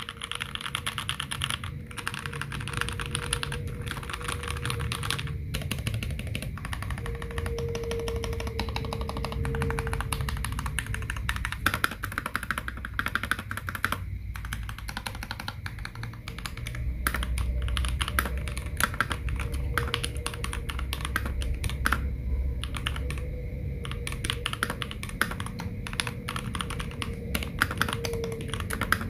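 Continuous fast typing on a Pressplay Apollo 61 mechanical keyboard with a CNC aluminium case, case foam and factory-lubed Gateron Yellow linear switches: a dense, steady run of keystroke clacks with a few brief pauses.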